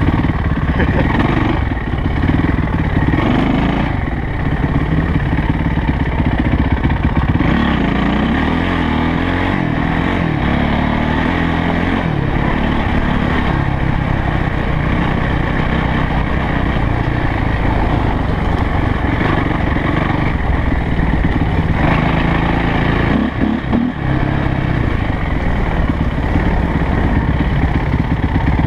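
Yamaha YZ450F's single-cylinder four-stroke engine running as the dirt bike is ridden, its pitch rising and falling with the throttle. It briefly dips about 23 seconds in.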